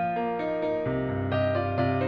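Background music: a keyboard plays a melody of short notes over held bass notes.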